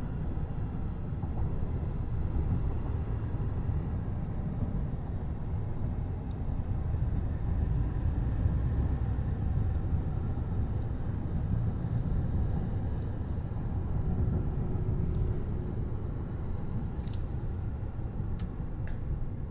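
A 2019 GMC Yukon XL Denali being driven, heard from inside the cabin as a steady low rumble of road and engine noise.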